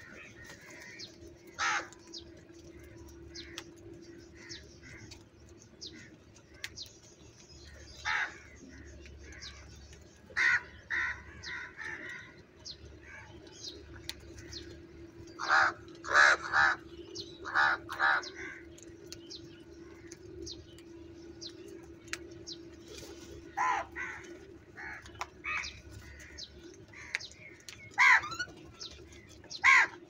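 House crows cawing: short calls now singly, now in quick runs of three or four, with the busiest run about halfway through, from a flock feeding together. A faint steady hum lies beneath.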